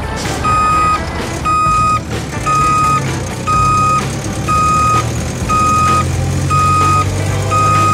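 Komatsu PC12UU-2 mini excavator's travel alarm beeping steadily, eight even beeps about one a second, over its engine running: the warning that the machine is moving on its tracks.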